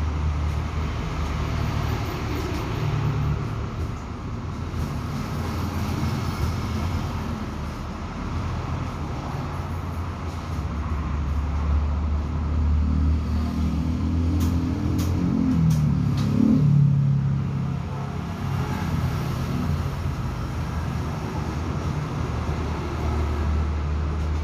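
Steady low hum of motor vehicle engine noise. About two-thirds of the way through, an engine rises and falls in pitch, followed by a few light clicks.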